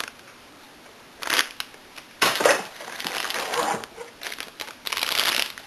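Plastic packaging crinkling and rustling in three bursts as boxed camcorder accessories are handled and unwrapped.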